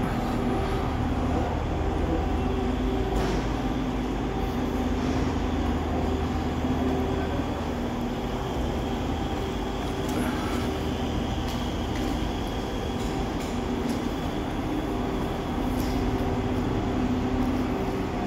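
A motor vehicle's engine running at a steady pitch while driving, over a continuous low road rumble.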